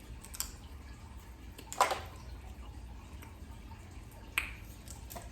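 Crawfish being peeled and eaten: a few sharp, wet cracks and smacks of shells and mouths, the loudest about two seconds in and again near the end.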